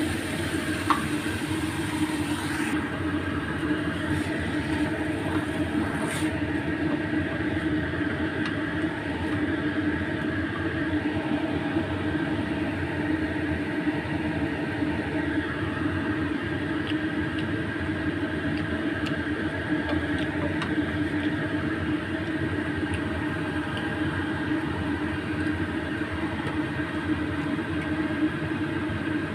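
Papaya leaves and fish stir-frying in a frying pan, with water poured in at the start hissing for about the first three seconds, and a wooden spatula scraping the pan now and then. Underneath runs a steady mechanical kitchen hum.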